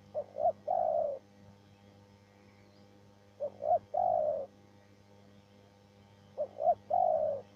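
Spotted dove (tekukur) cooing three times, each phrase two short coos followed by a longer, slightly falling coo.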